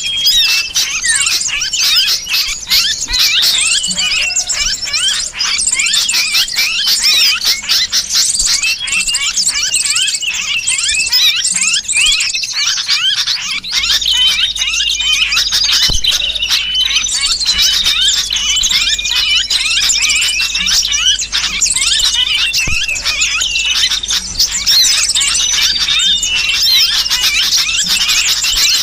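Lure recording of many small birds calling at once, a dense, unbroken chatter of rapid high chirps and squeals. It mixes sooty-headed bulbul calls with the alarmed, squealing cries of a bird caught in a trap, played to draw other birds in.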